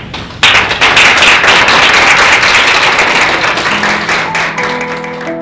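Audience applause breaks out about half a second in, dense clapping that is loudest at first and slowly dies away. Sustained music notes come in near the end as the clapping fades.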